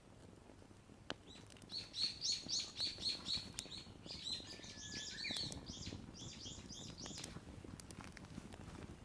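A small songbird singing a fast series of repeated high notes, about four a second, in three runs from about two seconds in until about seven seconds in.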